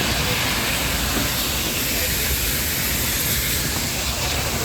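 Steady rushing noise of the Nilgiri toy train running along the line, with voices mixed in.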